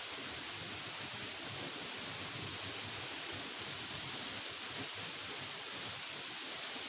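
Waterfall rushing in a steady, unbroken hiss.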